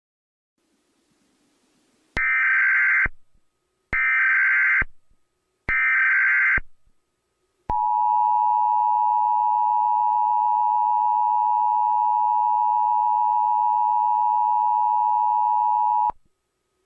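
Emergency Alert System SAME header: three short bursts of warbling data tones about two seconds apart. These are followed by the EAS attention signal, a steady two-tone beep near 1 kHz held for about eight seconds, which cuts off suddenly. Together they announce an incoming emergency alert.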